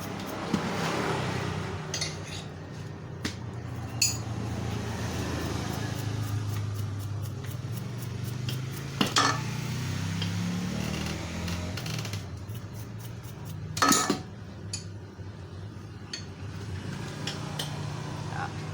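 Small metal carburetor parts of a grass-cutter engine clinking and knocking as they are handled during cleaning. A few sharp clinks are scattered through, the loudest near the end, over a steady low hum.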